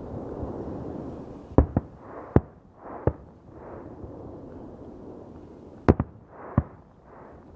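Fireworks going off: a series of sharp bangs, some in quick pairs, over a steady rumble of more distant fireworks.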